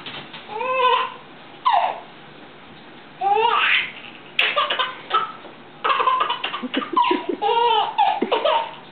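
A baby laughing in a string of short, high-pitched giggles and squeals, coming more often in the second half.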